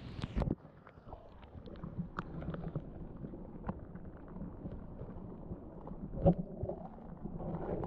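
Creek water heard through a submerged camera's waterproof housing: a muffled low rumble with scattered clicks and knocks, loud knocks about half a second in and about six seconds in.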